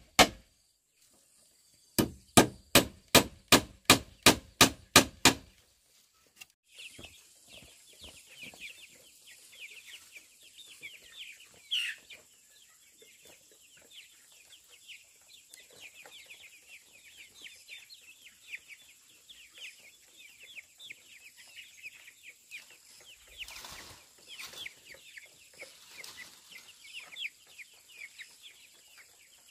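Hammer blows, about ten sharp ringing strikes at roughly three a second, stopping abruptly. Then a flock of chicks peeping continuously in many short, high-pitched chirps.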